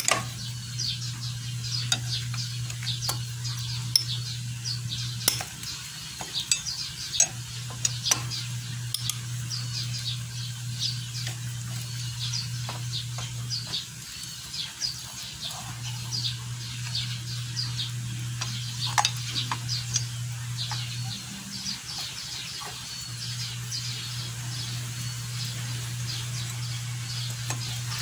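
Metal clicks and clinks of a socket wrench loosening the 8 mm oil-filter cover bolts on a Suzuki Raider J 110 engine. Birds chirp in the background, and a low steady hum cuts in and out every few seconds.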